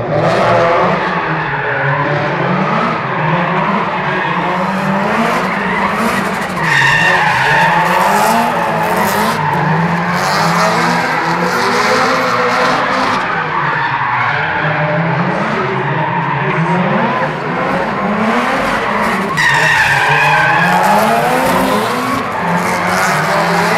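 Two Subaru drift cars sliding in tandem, their engines revving up and down with tyre squeal throughout. The squeal is loudest twice, about seven and about twenty seconds in.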